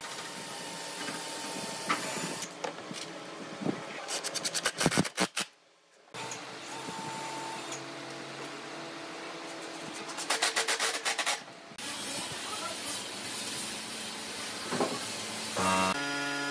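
Workshop power tools in quick succession: a cordless drill running with a countersink bit, two short passages of fast rattling clicks from driving screws, and the steady hiss of a compressed-air spray gun applying finish.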